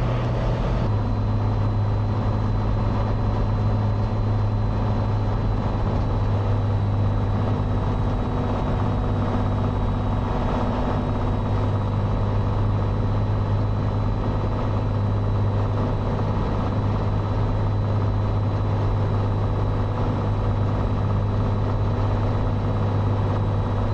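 Cessna 182's six-cylinder engine and propeller droning steadily, heard inside the cabin at approach power on short final. The note drops slightly in pitch about a second in.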